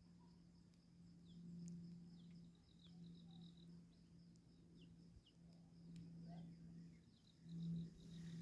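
Faint rural outdoor ambience: scattered short, falling bird chirps over a steady high insect trill and a steady low hum. A short louder swell comes near the end.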